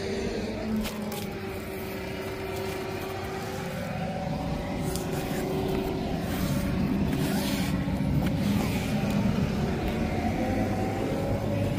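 Road traffic on the bridge: vehicle engines running, their pitch bending slightly as they pass, growing gradually louder toward the end.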